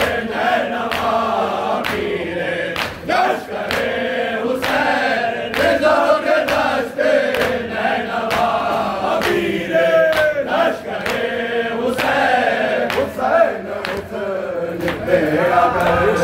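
A group of men chanting a noha, an Urdu mourning lament for Husain, together. Hands strike chests in matam to a steady beat, a little more than once a second.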